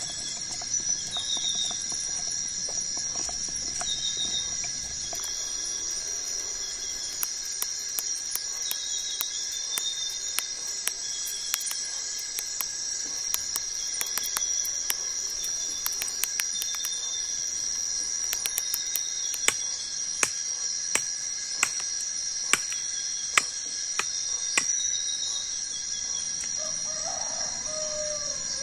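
Machete chopping into a young coconut: sharp knocks about once a second, loudest past the middle. Underneath, forest insects keep up a steady high drone with repeated chirps.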